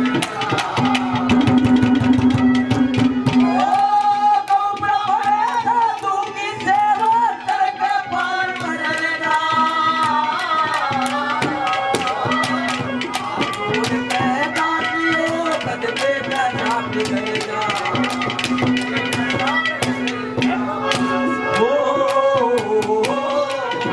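Live Haryanvi ragni accompaniment: hand drums played in a fast, steady beat under a held low note and a wandering melody line.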